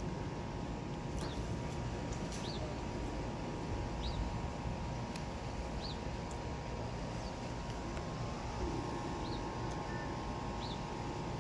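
A bird chirping about once a second, each call a short high note that rises and falls, over a steady low rumble of outdoor air. The last of a roll of thunder fades out at the start.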